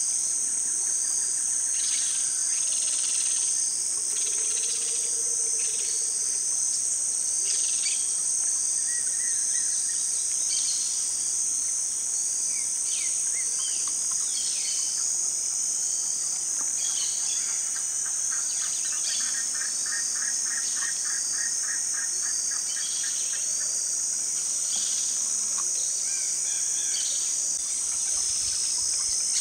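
A steady, high-pitched chorus of insects, with short, scattered scratching and rustling as a nine-banded armadillo roots in dry leaves and soil. A rapid trill sounds for a few seconds past the middle.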